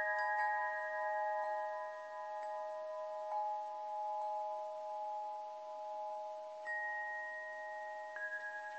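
Metal chimes ringing: several bell-like notes sustain and overlap, with new notes struck softly every second or so and two fresh strikes near the end.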